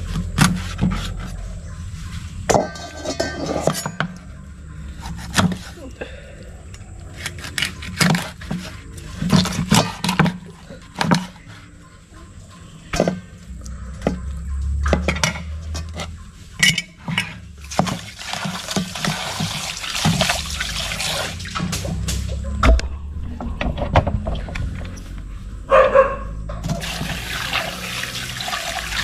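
Cleaver chopping grouper fillet into chunks on a wooden chopping block: a long run of sharp, irregular chops. Near the end a tap runs into a steel bowl as the fish pieces are rinsed.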